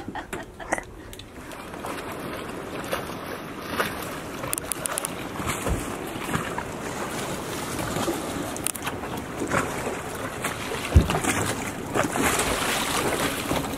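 Rushing wind and water noise around a boat at night, building gradually, with scattered knocks and one heavy thump about eleven seconds in.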